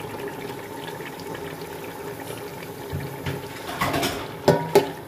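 Wet masala simmering in an aluminium pot with a steady bubbling hiss. About four seconds in, a steel spoon knocks against the pot several times as raw chicken is turned into the masala.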